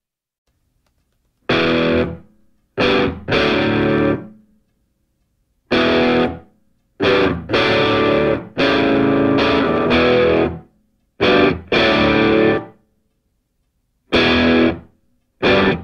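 Background music: distorted electric guitar playing hard stop-start chords, cut off by short silences between the bursts.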